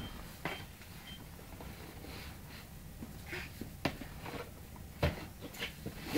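Scattered light taps and knocks as a baby grabs and pushes a cardboard toy box on a foam play mat, with soft breathy sounds from the baby in between.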